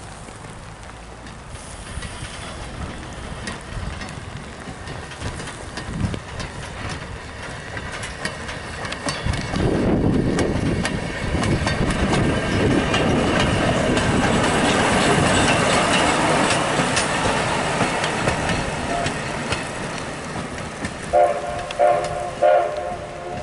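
Small rail motorcar towing a water-tank trailer runs past close by, its motor and wheels growing loud, with clicking as the wheels cross rail joints, then fading away. Near the end a horn sounds three short blasts.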